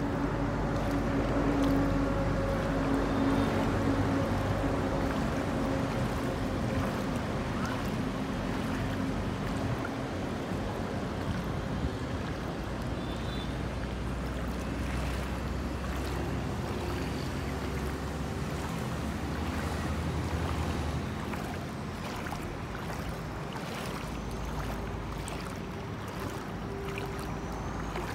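Floodwater moving and wind on the microphone, with a steady low motor-like hum through the first several seconds and a deeper rumble in the middle.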